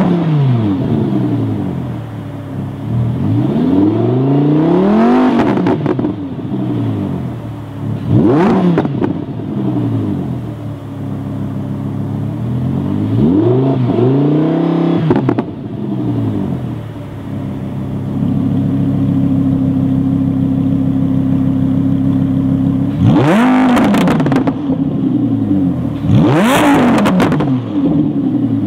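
Lamborghini Huracán LP610-4's V10 with a Supersport exhaust revved while standing still: several rising and falling blips with exhaust valves closed, a few seconds held steady at raised revs, then near the end three sharper, brighter revs with the valves open.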